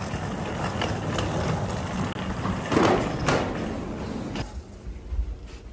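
Steady outdoor rumble and noise, louder briefly about three seconds in. It drops off suddenly about four and a half seconds in to a quieter indoor hum as the automatic sliding doors are passed.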